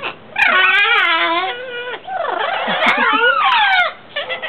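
Blue-fronted Amazon parrots calling to each other: a long wavering call about half a second in, then a run of gliding, swooping calls that stops shortly before the end.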